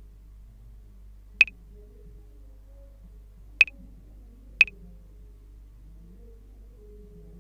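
A clave-type percussion sample from a reggae drum kit playing on its own in a step-sequencer pattern. It gives sharp, high, pitched clicks, four of them unevenly spaced in a syncopated rhythm, two falling about a second apart.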